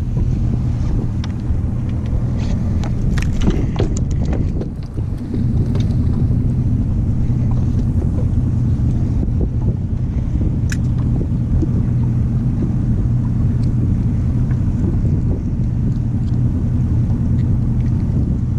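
Outboard boat motor idling with a steady low hum. A few knocks and clicks of gear being handled come about three to five seconds in.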